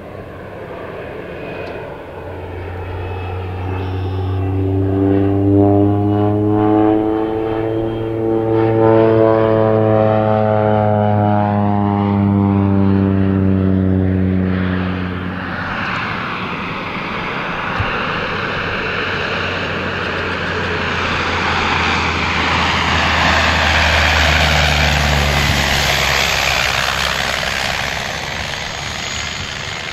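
An Air Tractor AT-402 crop duster's Pratt & Whitney PT6A turboprop engine and propeller drone past. The pitch slides down as the plane goes by, then the sound builds again as it comes back past low.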